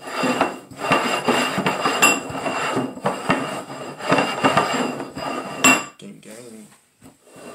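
Two upside-down ceramic bowls slid and shuffled around on a wooden tabletop, scraping steadily with a few sharp knocks and clinks. The sound dies away about six seconds in.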